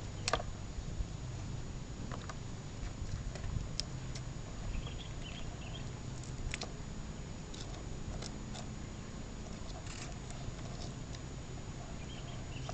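Metal forceps scraping and prying barnacles off a young sea turtle's shell in a basin of water. Scattered faint clicks and scratches sound over a low steady background rumble.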